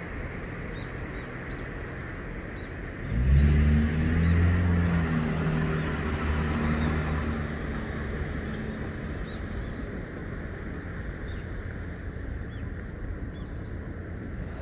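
A motor vehicle's engine hum that comes in suddenly about three seconds in, is loudest for a couple of seconds, then fades slowly over several seconds, over a steady outdoor hiss.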